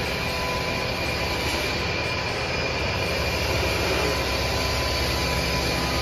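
An engine running steadily, a low drone with a faint steady whine above it.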